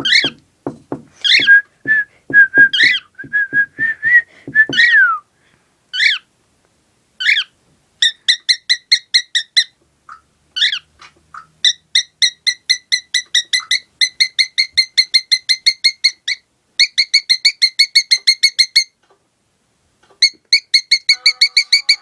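Pet cockatiel whistling and singing: swooping whistle notes over a quick run of taps for the first five seconds, then long runs of rapid, short repeated chirps, broken by brief pauses.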